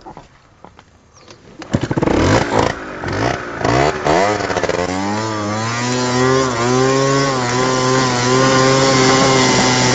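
A small petrol engine, the kind on a scooter or lawn tractor, starts pulling about two seconds in. It revs up and down for a few seconds, then runs steadily with its pitch slowly climbing as speed builds.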